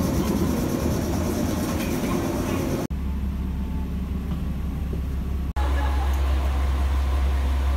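Station crowd noise for about three seconds, then a steady low hum of a KiHa 47 diesel railcar's engine idling, heard inside the passenger car and then, after a cut about five and a half seconds in, from the platform beside the train.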